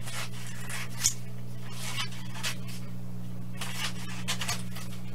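Scissors cutting through a paper sheet, a series of short irregular snips with some paper rustle, over a steady low hum.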